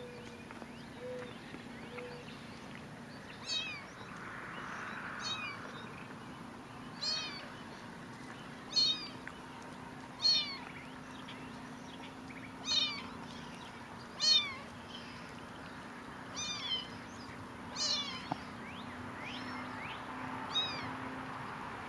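Young kitten mewing about ten times, a call every second or two, each a high thin mew falling in pitch.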